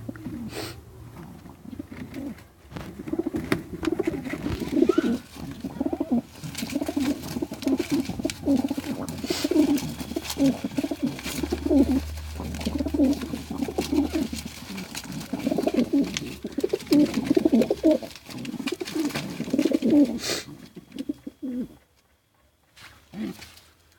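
Male domestic pigeons cooing over and over, low and throaty, during a fight between cocks. The cooing stops a few seconds before the end.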